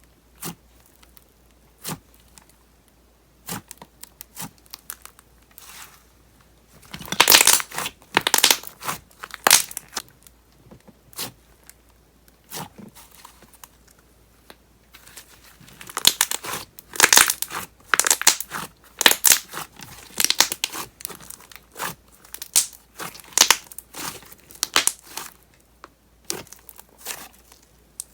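Thick wood clay slime being worked by hand, with its air bubbles popping in sharp crackling clicks. The clicks are scattered at first, then come in dense crackly runs about seven seconds in and again from about sixteen seconds.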